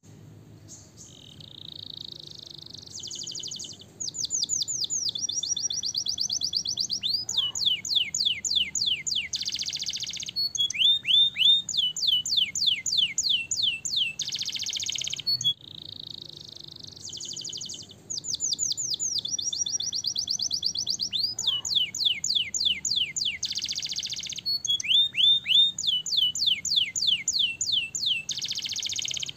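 Domestic canary singing a long song of fast trills and rolls, with rapid runs of sweeping notes alternating with buzzing rolled phrases. The same song sequence of about fifteen seconds plays twice over.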